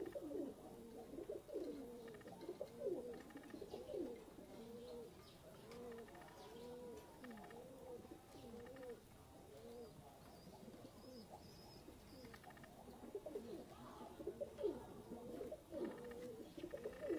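Domestic pigeons cooing softly: a steady run of rising-and-falling coos, about one and a half a second.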